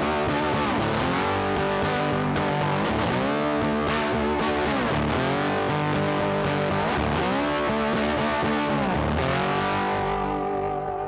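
Background music led by a distorted electric guitar, at a steady level that dips near the end.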